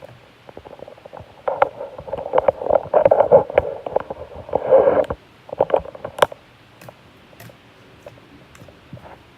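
Slime being squeezed and pressed by hand: a dense run of wet clicks and squelches for a few seconds, a few sharper pops just after, then scattered faint clicks.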